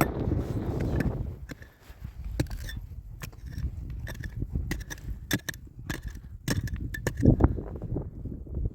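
Wind buffeting the microphone for about the first second and a half, then a series of light clicks and knocks, like small objects being handled.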